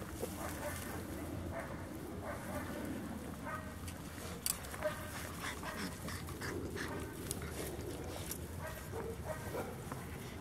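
Labrador retriever puppies making short, repeated little vocal sounds as they tussle and chew over a rubber ball.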